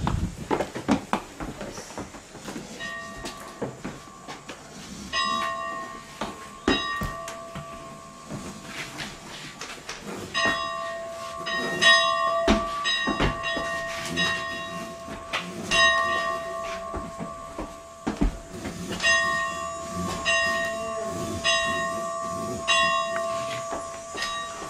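Church bell rung by hand on its rope, struck over and over at an uneven pace, each stroke ringing on into the next. The ringing begins about three seconds in.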